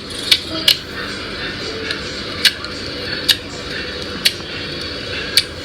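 Squishy slime being squeezed and kneaded by hand, with six sharp clicking pops at irregular intervals over a steady wet rustle.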